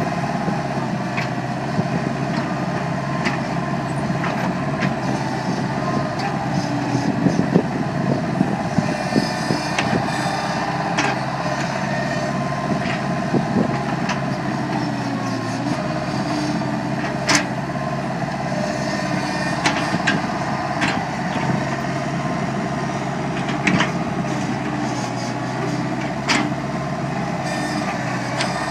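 Bobcat loader's engine running steadily while it works a backhoe attachment, with scattered sharp metallic clanks and knocks from the attachment, the strongest about two-thirds of the way through.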